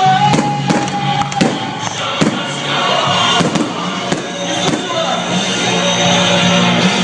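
Fireworks bursting in a run of sharp bangs, thinning out after about five seconds, over music.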